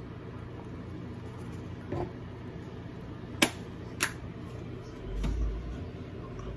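Two sharp clicks about half a second apart over a steady low hum, with a softer knock before them and a brief low rumble near the end.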